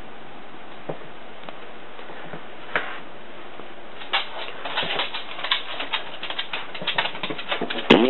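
A dog's claws clicking on a wooden floor as it walks, a quick irregular patter that starts about halfway through. A steady hiss of recording noise runs underneath.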